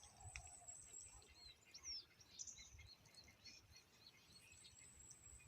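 Faint bird chirps and short whistled glides over a quiet outdoor background.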